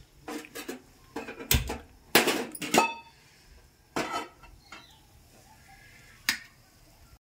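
An aluminium cooking pot clanking onto the metal pan support of a gas stove: a string of knocks and clinks, some ringing briefly, loudest about two to three seconds in, with one more sharp clink near the end.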